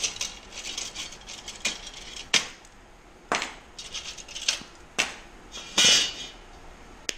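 Metal band clamps being worked loose and pulled off a metal fuel pump bracket: a handful of scattered metallic clicks and clinks, with a longer scrape about six seconds in, the loudest sound.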